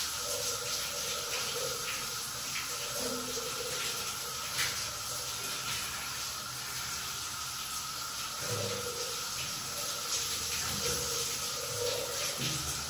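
Steady hiss with a faint, constant high-pitched tone running through it, and a few faint soft taps.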